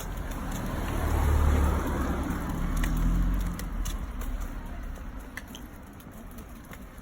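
A car passing by: engine and tyre noise swell to a peak a second or two in, then fade away.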